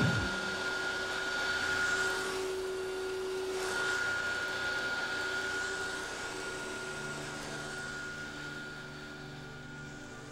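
Upright vacuum cleaner running steadily with a constant whine. Low sustained musical notes come in about two-thirds of the way through.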